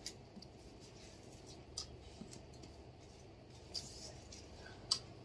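Faint eating sounds: scattered mouth clicks and smacks from chewing chicken and rice eaten by hand, with one sharper click near the end.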